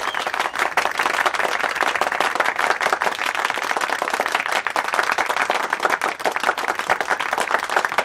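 Audience applauding at the end of a song: dense, steady clapping.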